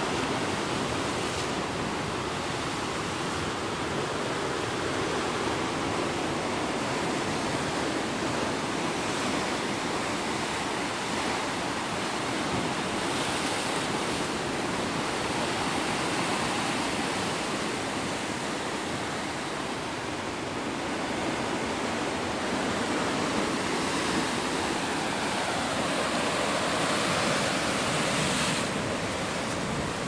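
Sea surf breaking and churning against the rocks at the foot of a sea cliff: a steady rush of water, a little louder for a few seconds near the end.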